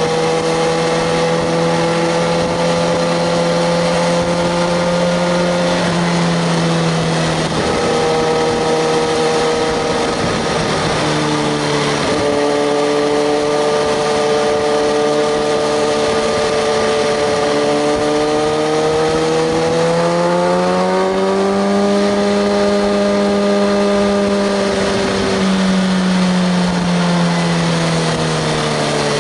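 Kawasaki ZX-6R 636's inline-four engine running under way at fairly steady revs. Its pitch dips briefly a few times, rises about two-thirds of the way through, then falls off near the end.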